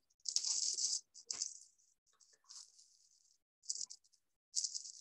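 Several short, irregular bursts of scratchy, rattling noise, with quiet gaps between them, picked up over a video-call microphone.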